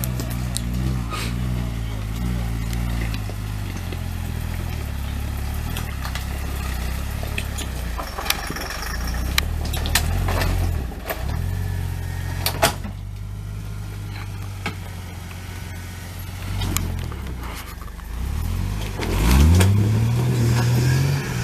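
A Jeep's engine running at low revs as it crawls up over a rock ledge, with scattered knocks and clicks along the way. Near the end the engine revs up sharply, rising in pitch, as it pulls itself onto the ledge.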